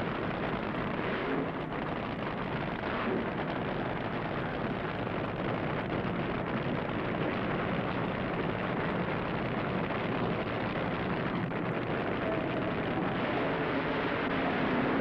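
Two supercharged V8 funny cars launching and racing side by side down a drag strip at full throttle, a loud, dense engine noise.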